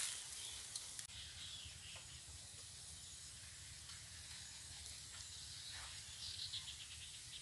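Quiet riverside outdoor ambience: a steady faint hiss with a low rumble underneath, and a few faint high chirps about six seconds in.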